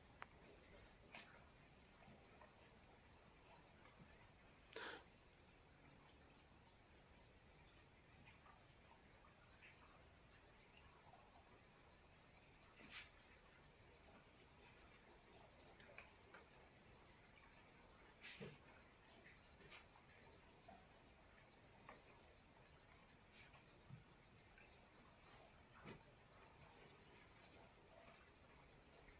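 A steady, high-pitched insect trill, rapidly and evenly pulsing, with a few faint clicks scattered through it.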